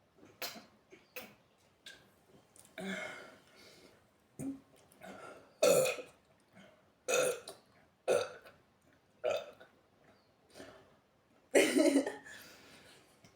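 A woman burping over and over, gas from a carbonated sparkling drink: short burps about one every second or two, the loudest and longest near the end.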